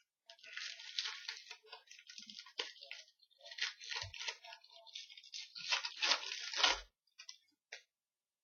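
A trading card pack's wrapper being torn open and crinkled, with a light knock about four seconds in and another near seven seconds.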